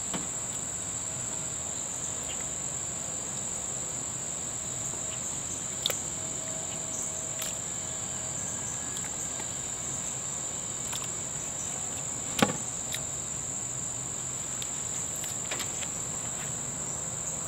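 Steady high-pitched insect chirring throughout. Over it, a few light clicks and knocks, the sharpest about twelve seconds in, from meat and a fork being handled in a plastic bowl.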